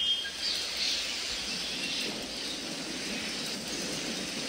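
Tropical rainforest ambience: a steady hiss with a few short bird chirps near the start and once more about two seconds in.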